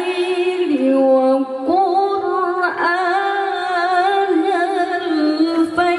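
A woman's voice reciting the Quran in melodic tilawah style through a microphone. She holds long, ornamented notes with a slowly wavering pitch, with a short break about a second and a half in.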